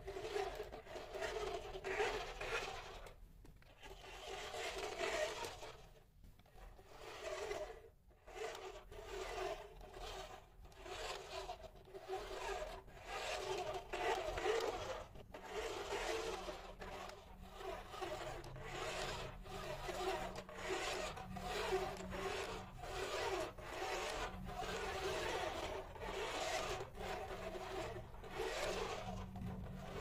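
Remote-control toy articulated bus's small electric motor and plastic gears whirring, with its wheels on a tiled floor. It drives in short spurts, stopping and starting every second or so.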